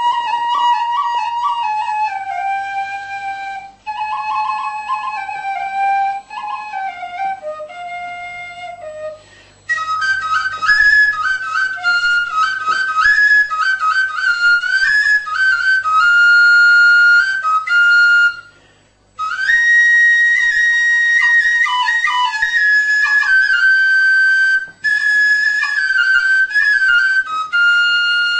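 Folk flute playing a solo traditional melody: a lower phrase for the first nine seconds, then a higher, quicker part broken by a few short pauses.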